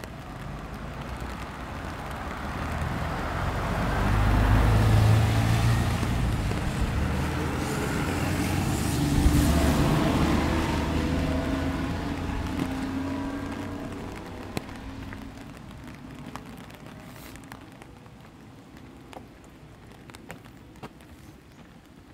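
A truck drives past on a wet road: engine rumble and tyre hiss swell to a peak about five seconds in, stay loud until about ten seconds, then fade away, leaving light rain and scattered drips.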